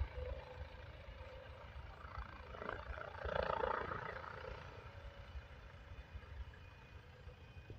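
Distant helicopter in flight coming in toward a landing, its sound swelling about three seconds in and then fading, over a low rumble.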